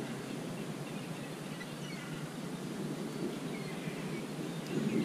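Steady wind and sea noise on a shingle beach, with faint seagull calls in the middle and a few small clicks near the end.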